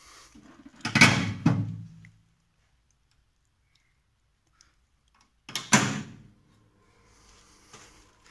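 Loud clunks of an electric pump's control panel being switched on: a double clunk about a second in and another single clunk at about five and a half seconds, as the breaker and then the rotary starter switch are thrown. A faint steady hum follows.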